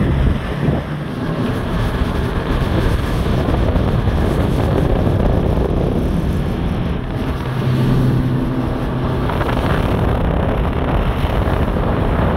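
Tour boat's engine running steadily under way, with wind buffeting the microphone. The engine hum swells briefly about eight seconds in.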